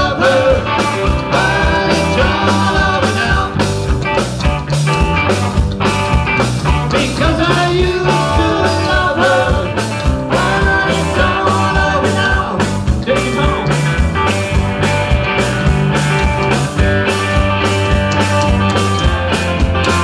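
Live southern country rock band playing: a woman singing over electric guitars, bass and a steady rock drum beat.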